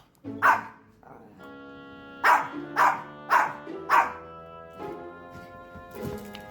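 A dog barks five times: once about half a second in, then four quick barks in a row a couple of seconds later. Background music with held notes comes in at about a second and a half and runs under the barks.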